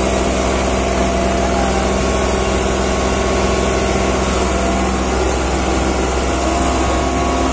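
New Holland tractor's diesel engine running steadily as the tractor crawls through loose sand.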